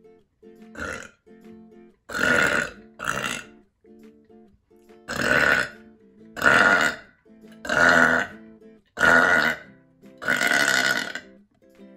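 A woman burping loudly, a long run of separate burps: a quieter one about a second in, then seven loud ones roughly a second apart, the last the longest. Soft strummed acoustic guitar music plays between them.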